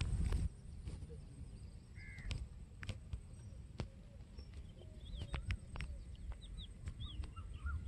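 Birds calling in short chirps, with a steady low rumble and scattered sharp clicks.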